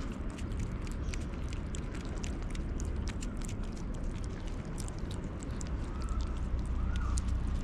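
Cat and kittens chewing and lapping wet cat food from a plastic plate: a steady run of quick, wet clicks and smacks over a low rumble.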